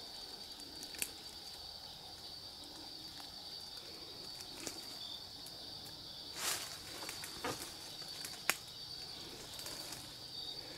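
A few scattered snaps and crunches of something unseen moving through brush and leaf litter in the dark, the biggest about six and a half seconds in, which the camper takes for something huge walking. Under it runs a steady high chorus of night insects.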